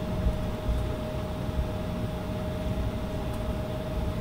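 Cabin noise inside an Embraer E170 taxiing slowly: its General Electric CF34 turbofans at idle and the cabin air make a steady hum with one constant mid-pitched tone, over a low rumble with a few soft bumps as the wheels roll over the concrete slab joints.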